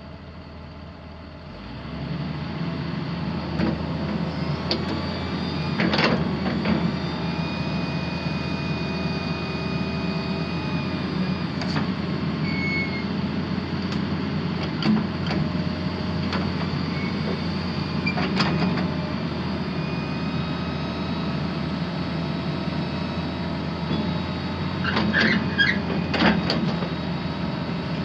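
John Deere 6068T 6.8 L six-cylinder diesel of a John Deere 200DLC excavator running steadily, growing louder about two seconds in. Sharp metallic knocks sound every few seconds, with a cluster near the end.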